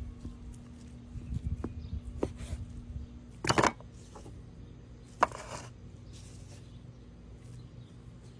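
Kitchen knife knocking and scraping on a cutting board while raw ribeye steak is cut into cubes. Scattered knocks, with a louder scrape about three and a half seconds in and a sharp knock about five seconds in.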